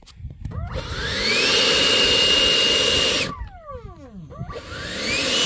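120mm electric ducted fan of an HSD Jets F-86 model jet spooling up to full throttle with a rising whine and a rush of air, holding a high steady whine for about two seconds, winding down, then spooling up again near the end. This is a static run-up with the wheel brakes fully engaged, testing whether they hold the jet.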